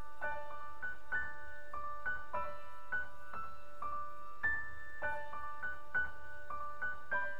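Background music: a gentle piano melody, with notes struck at an even pace and left to ring.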